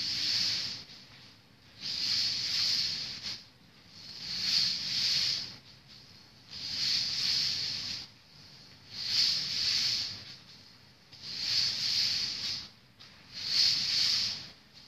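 Spinning hula hoop swishing: a hiss that swells and fades about every two seconds.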